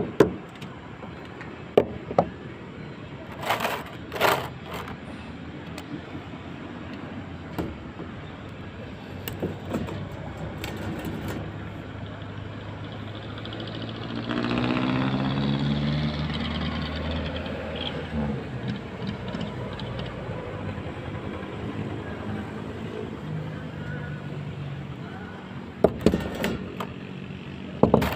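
Sharp hammer strikes on the roof edge, a few near the start and a quick run again near the end. In the middle a vehicle engine swells up for a few seconds, its pitch falling, then fades.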